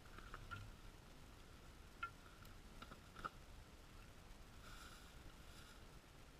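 Near silence with a few faint, separate clicks and ticks.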